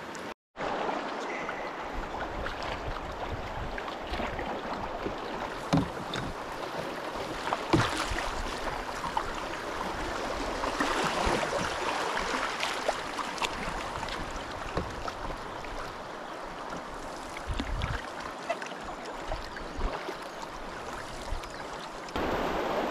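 Steady rush and splash of river water past an open canoe running a small grade one rapid, with paddle strokes in the water and a few sharp knocks.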